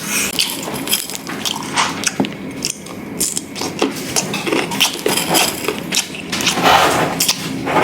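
Close-up eating sounds: crisp crunching and chewing of sour fruit, many short crackly bites, getting louder near the end.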